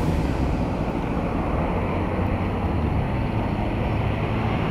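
A car driving along a road, heard from inside the cabin: a steady low engine hum under even tyre and road noise.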